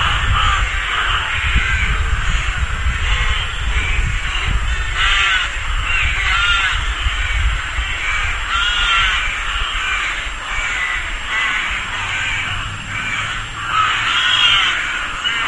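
Rook colony: many rooks cawing over one another without a break, a dense chorus of harsh calls, with a low rumble underneath.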